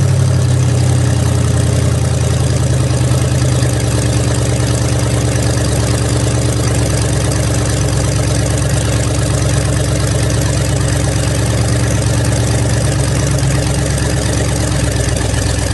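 Supercharged 392 Hemi V8 of a rat rod running steadily at low speed, close to the microphone, with no revving.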